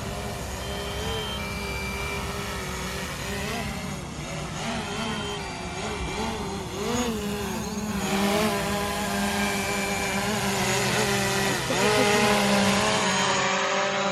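DJI Mavic Pro quadcopter hovering close by, its propeller whine wavering up and down in pitch as it manoeuvres, growing louder toward the end. A few short high beeps sound in the first half.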